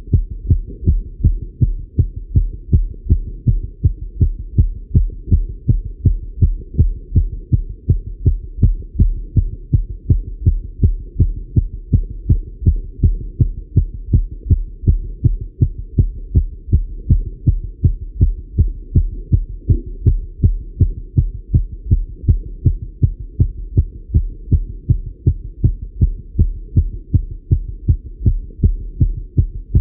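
A man's heartbeat heard through a Littmann stethoscope: fast, steady, regular thuds, about two a second, raised by cycling. A low steady rumble lies underneath.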